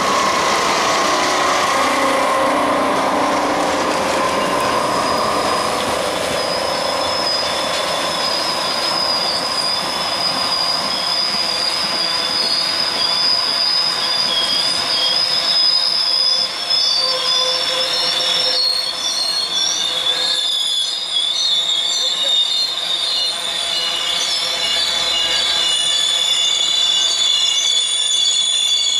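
Passenger train cars rolling past on a curve with steady, high-pitched wheel squeal. In the first few seconds the passing EMD E8 diesel locomotives are heard fading away under it.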